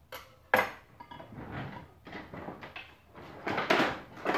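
Kitchen utensils and dishes clinking and clattering: a sharp clink about half a second in, then a burst of rattling near the end as a utensil drawer is rummaged through.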